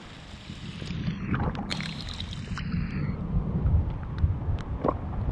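Shallow muddy pond water sloshing and splashing, with a few short splashes, over a steady low wind rumble on the microphone.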